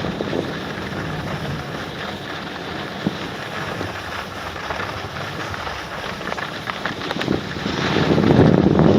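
Wind buffeting the microphone over the scrape of edges sliding on hard, icy snow during a downhill run. The noise swells louder near the end.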